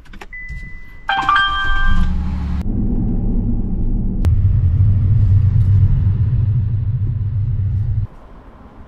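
Chevy Colorado pickup started by push button: a short electronic beep, then a cluster of dashboard chimes as the engine cranks and catches about two seconds in. After a click, the truck's low, steady driving rumble follows and cuts off abruptly near the end.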